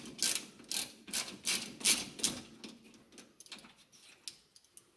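A series of sharp metallic clicks, about two or three a second, fading to fainter scattered ticks in the second half: a hand ratchet working the lower shock absorber mounting bolt loose on the front suspension of a 1971 Oldsmobile 98.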